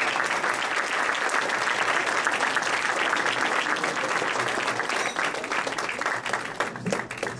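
A room full of people applauding, dense and steady, thinning out and dying away over the last couple of seconds.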